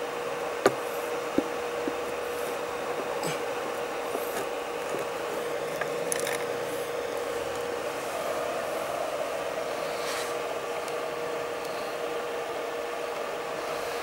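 Welding machine's cooling fan humming steadily with a constant tone, with a few light handling clicks and rubs in the first two seconds.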